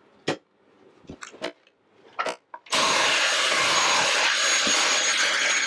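Handheld vacuum cleaner with a crevice nozzle switches on about halfway through and runs steadily with a thin high whine for about three seconds, sucking sawdust out of a cabinet cubby. A few light knocks and clicks come before it starts.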